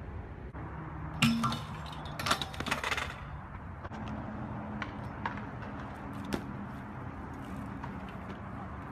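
BMX bike clattering on a concrete skatepark: sharp metallic knocks and clinks about a second in and again in a rapid run from two to three seconds in, with a few lighter ticks afterwards over a low steady background.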